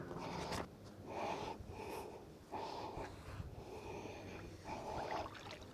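A person breathing close to the microphone, faint, with a breath about every second.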